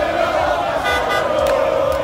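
A street crowd of football fans chanting and singing together, over a steady low beat.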